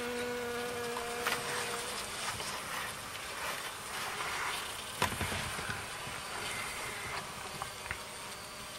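Honeybees buzzing, with one bee's steady hum close by that stops about two seconds in, leaving a faint buzz; a single knock about five seconds in.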